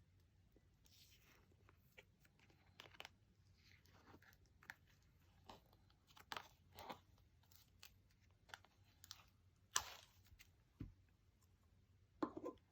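Clay-heavy slime being squished and poked by hand: sparse, soft, sticky squishes and small clicks, the loudest about ten seconds in and again near the end.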